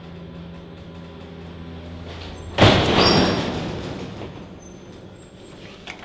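Elevator car running with a steady low hum that cuts off about two and a half seconds in with a sudden loud bang and rumble, dying away over a couple of seconds: the elevator jolting to a stop in an electrical short circuit. A few faint button clicks come near the end.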